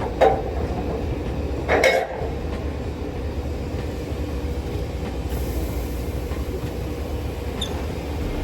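Heavy truck's diesel engine running with a steady low rumble, with two short knocks in the first two seconds.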